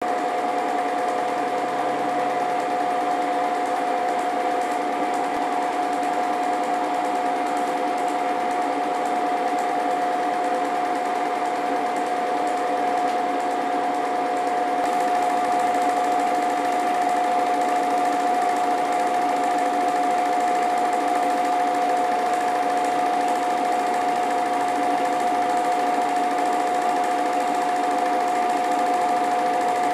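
Film projector running: a steady mechanical whir carrying a constant high hum, unchanging throughout and slightly louder about halfway through.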